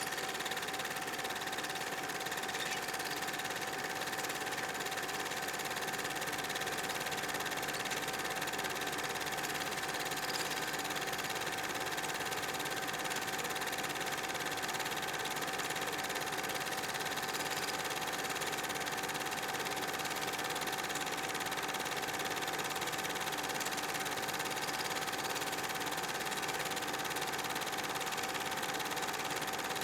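Vintage slide projector's cooling fan and motor running with a steady whirring hum and a constant mid-pitched tone, no slide changes clicking.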